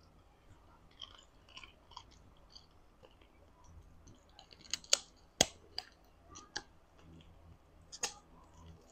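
Close-miked chewing and biting of boiled chicken with its skin: soft mouth noises broken by short sharp clicks, the loudest about five seconds in and again near eight seconds.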